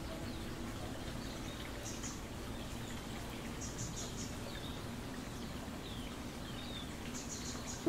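Outdoor nature ambience: a steady background hiss with scattered high bird chirps, a few quick runs of three or four notes and short falling calls.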